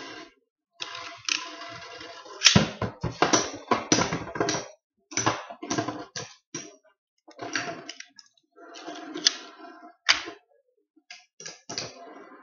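Two Beyblade spinning tops battling in a plastic stadium. Many sharp clicks and knocks as their metal fusion wheels collide, over a scraping whir, coming in spurts with short silent gaps.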